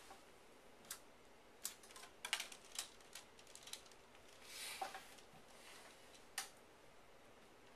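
Scattered light plastic clicks and taps as a 5x5 puzzle cube is picked up and handled, with a few quick clicks together about two seconds in and a brief rustle near the middle.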